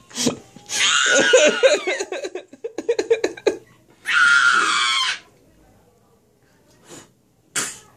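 A young girl's loud, shrill screeches, one about a second in and one about four seconds in, with choppy giggling between them, then two short breaths near the end.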